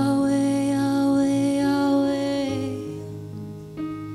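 Live church worship band playing music with long held notes over sustained chords, turning quieter about two and a half seconds in.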